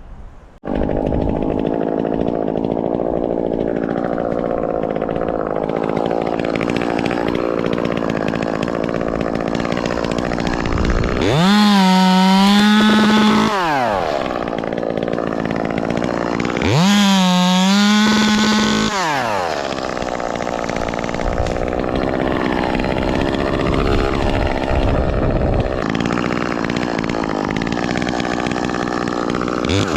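Ported Echo 2511T top-handle two-stroke chainsaw, loud, cutting limb wood under load. It comes in suddenly about half a second in, and twice, around the middle, revs up high and drops back, with another rev near the end.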